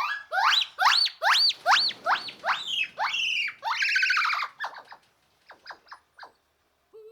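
A quick series of high, squeaky animal calls, each rising and falling in pitch, about three a second, then a few short faint chirps.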